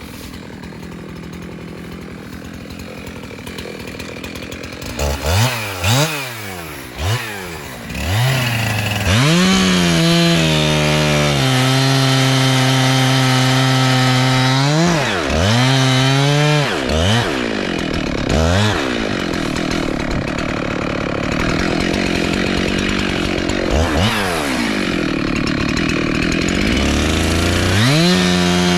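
Jonsered two-stroke chainsaw idling, revved a few times about five seconds in, then held at full throttle cutting into a tree, its pitch dipping and recovering several times as the chain loads up in the cut.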